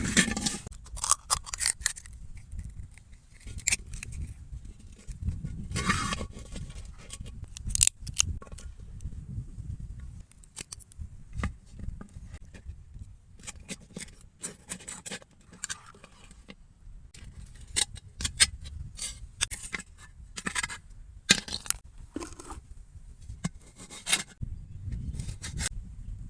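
Close handling work: irregular sharp clicks, snips and scrapes, with a low rumble underneath.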